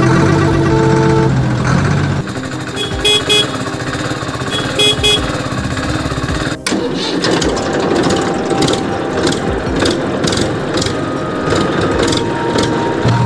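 Music for about the first two seconds, then a truck engine running, with quick double horn beeps twice, about three and five seconds in. After a brief break midway, the engine sound goes on, with regular knocks about every two-thirds of a second.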